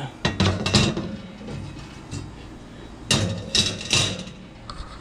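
Metal clanking of the grill's cooking grates being lifted and handled on the lit gas grill, in two bursts of knocks: one just after the start and another about three seconds in.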